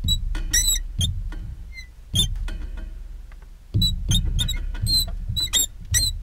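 Marker tip squeaking and rubbing on a glass lightboard as equations are written: short high squeaks in quick clusters over the low rub of the strokes, busiest in the second half.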